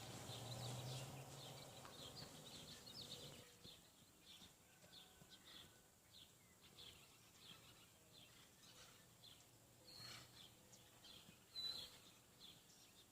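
Faint small birds chirping on and off, with a brighter chirp near the end; a low steady hum underneath fades out about three seconds in.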